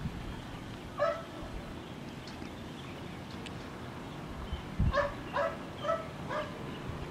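A dog barking, once and then four times in a row, over a steady outdoor hiss, with a low thump just before the run of barks.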